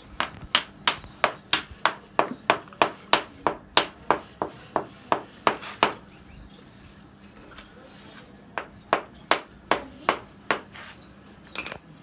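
A run of regular sharp knocks, about three a second for five seconds or so, then after a pause a shorter run of about six more and a last quick cluster near the end.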